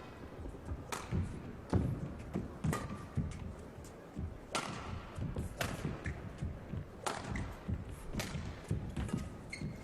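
Badminton rally: rackets strike the shuttlecock with sharp cracks every second or two, while players' footsteps thud and shoes squeak briefly on the court.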